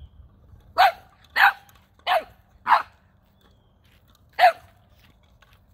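Nine-week-old boxer puppy barking: four short, sharp barks about half a second apart, then a fifth after a pause of almost two seconds.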